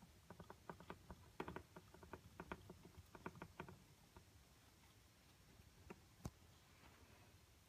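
Faint, irregular light clicks and taps from a hamster scrabbling about inside a plastic exercise wheel, bunched in the first few seconds, with one sharper click a little after six seconds.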